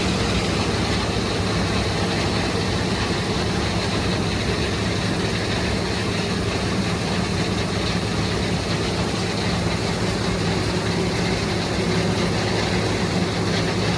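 Heavy diesel farm machinery running steadily at constant speed, with an even low engine tone and no change in pitch or load.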